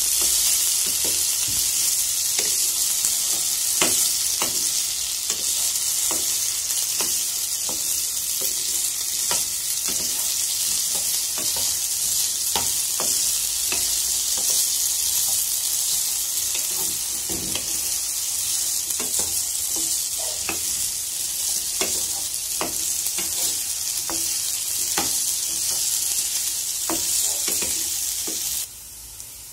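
Cubed raw potatoes sizzling steadily in hot oil in a nonstick frying pan, with light taps and scrapes as a wooden spatula stirs them. The sizzle cuts off suddenly near the end.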